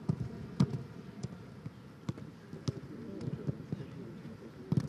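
Footballs being kicked on a grass pitch: about half a dozen sharp thuds of boot on ball, the loudest about half a second in.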